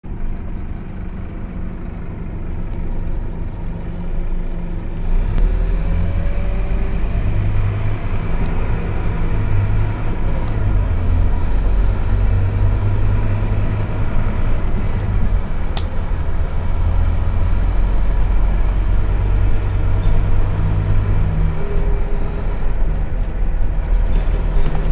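Scania OmniLink single-decker bus heard from inside the passenger saloon. Its diesel engine grows louder about five seconds in, with a brief rising whine, then runs steadily under load as the bus drives along. A few sharp clicks come from the cabin.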